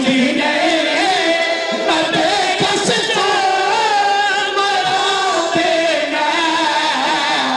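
Male mourners chanting a noha lament together, many voices in a slow, wavering melodic line.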